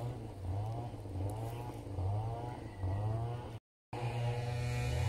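A motor running, its pitch rising and falling over and over, under a second apart, with a brief dropout a little past halfway.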